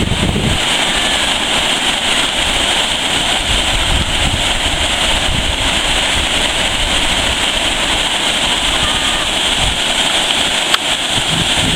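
Steady rushing of a large waterfall on the Wilge River, with an uneven low rumble of wind buffeting the microphone.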